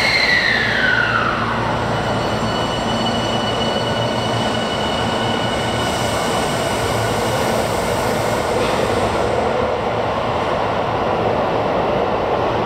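Tokyu 5000-series electric train pulling out of an underground station. A motor whine falls in pitch over the first two seconds, then steady running noise with thin high tones continues as the train draws away.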